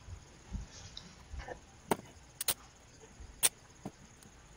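A roll of cloth duct tape being handled as a strip is torn off: a few soft thuds, then about five short, sharp snaps over the next two seconds.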